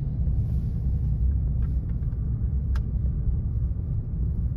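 Steady low rumble of a car being driven, with one sharp click a little under three seconds in.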